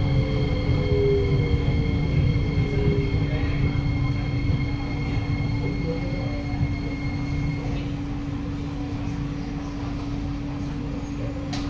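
Kawasaki–CRRC Sifang C151C metro train heard from inside the car as it brakes to a stop: a low rumble and a falling motor whine die away over the first few seconds. A steady high whine cuts off about eight seconds in, leaving the steady hum of the train's onboard equipment, with a sharp click near the end.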